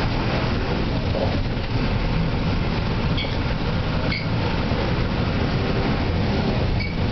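Steady low rumble heard from inside a vehicle moving along an unpaved, potholed dirt road, with a few short rattles.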